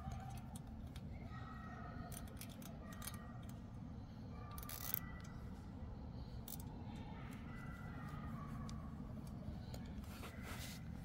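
Nylon zip tie being pulled tight through its ratchet head by hand: a series of faint, scattered clicks, with one sharper click about five seconds in.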